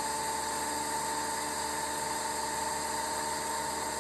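Desktop model turbofan jet engine running at a steady speed after ignition: an even high whine over a steady hiss.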